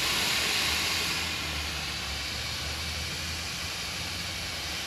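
Pressurized nitrogen hissing steadily as it blows flush solvent through a refrigerant liquid line, pushing old oil out of the line. The hiss eases slightly after about a second.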